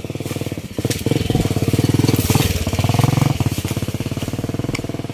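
Small motorcycle engine running with a rapid, even putter. It grows louder about a second in, then eases off toward the end.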